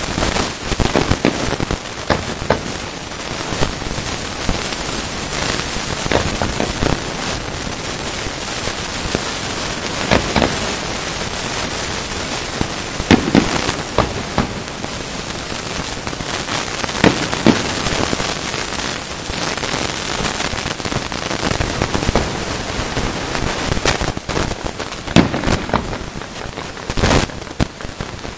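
Fireworks display: a steady crackling hiss from bursting glitter stars, with repeated sharp bangs of shells exploding at irregular intervals.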